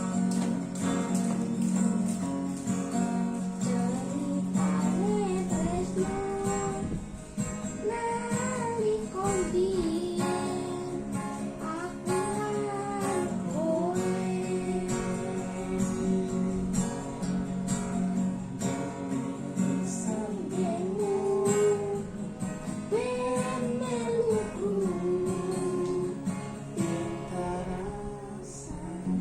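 A singer's voice carrying a melody over a strummed acoustic guitar.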